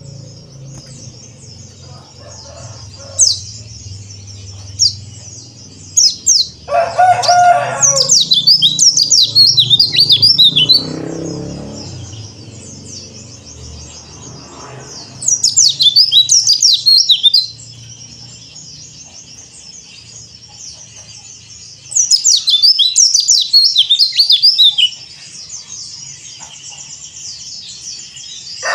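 White-eye (pleci dakbal, a yellow-breasted Bali white-eye) singing: a few single high chirps, then three loud bursts of rapid, high twittering song, each two to three seconds long. A briefer, lower call comes about seven seconds in.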